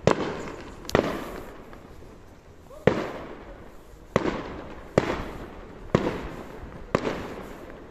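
Aerial fireworks bursting overhead: seven sharp bangs, roughly one a second at uneven spacing, each trailing off in a long echo.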